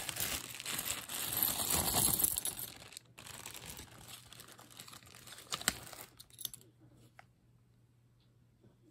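Plastic zip-top bag crinkling as a handful of metal lapel pins is tipped out onto a cloth-covered table, with a few sharp clicks of pins. The crinkling is loudest in the first three seconds, turns to softer rustling and dies away after about six seconds.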